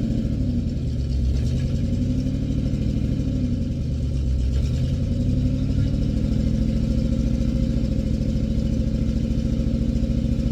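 Old International backhoe's engine running steadily. Its speed sags twice and picks back up, then holds steady.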